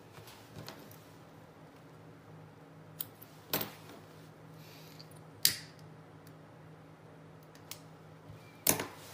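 A few sharp clicks and snaps of small hand tools being picked up and handled on a tabletop while thread ends are finished off: about three seconds in, again half a second later, a louder one about five and a half seconds in, and another near the end. A faint steady hum sits underneath.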